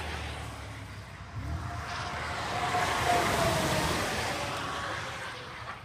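Car engines on a race track: one car's engine fading away as it drives off, then another car approaching at speed, its engine note swelling to a peak about three seconds in and falling in pitch as it passes and fades.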